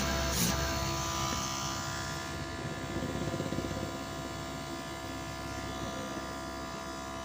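Small 12-volt DC motor blower running steadily with a continuous electric hum and whine.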